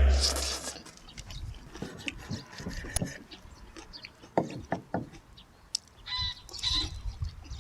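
Background music fades out in the first second, leaving faint scattered knocks, then two short animal calls about six and a half seconds in.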